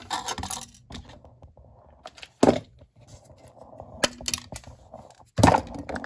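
Old can capacitors being worked out of a Heathkit HP-23A power supply's metal chassis: metal clinking and scraping, with two sharp knocks, about two and a half and five and a half seconds in.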